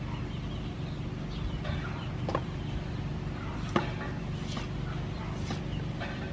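Meat cleaver chopping a raw pork leg on a wooden chopping board: a few sharp knocks, the loudest a little past halfway. Chickens cluck in the background.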